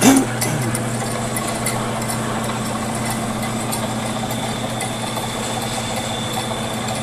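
Vectrax 7 x 12 inch horizontal band saw switched on, with a brief loud start right at the beginning, then its electric motor and blade running free with a steady, even hum and a faint high whine.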